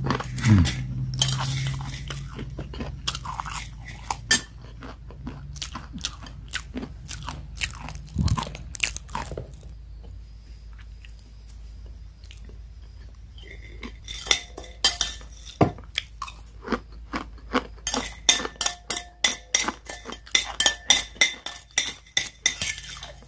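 Close-up crunching of crisp, charred dry-fried instant noodles being chewed. From about two-thirds of the way in, a metal spoon clinks and scrapes on a ceramic plate in quick repeated strokes, gathering the last bits.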